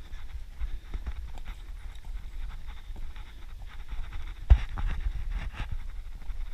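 Running footfalls on a dirt and rock forest trail: a quick, uneven series of low thuds over a low rumble, with one heavier thud about four and a half seconds in.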